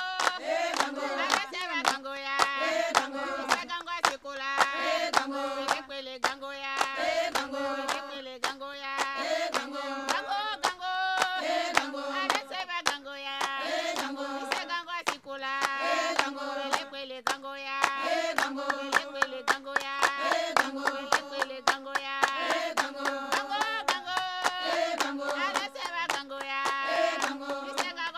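Music: a song with singing voices over a steady hand-clapping rhythm.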